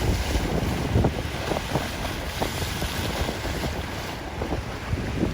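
Strong wind buffeting the microphone in gusts, a rumbling, uneven roar, over the wash of Lake Erie waves running high in a flood.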